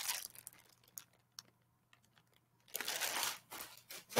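Plastic poly bag crinkling as a packaged shirt is handled, in a few short bursts with small clicks between, the longest about three seconds in.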